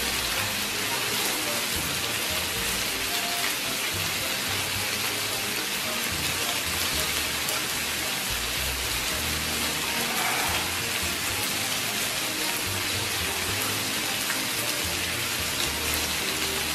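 Lamb and vegetables sizzling steadily on a hot tabletop grill tray: an even, unbroken hiss.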